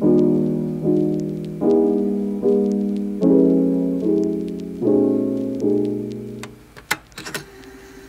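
Background piano music: chords struck about once every 0.8 s, each ringing out and dying away, the music fading about six and a half seconds in. A few short clicks follow near the end.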